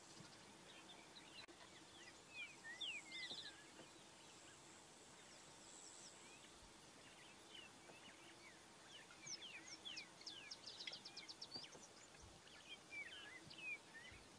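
Faint, high-pitched chirps and quick trills, like bird calls, in clusters: a few about two to three seconds in, then many more from about nine seconds to near the end, over quiet background noise.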